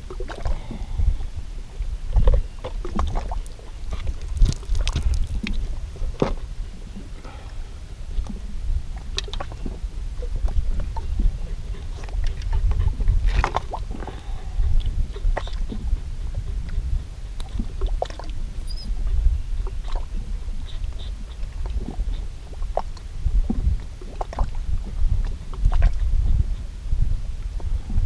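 Wind buffeting an outdoor microphone, a rumbling, gusting low roar. Scattered small clicks and knocks come from handling a fishing hook, line and catch.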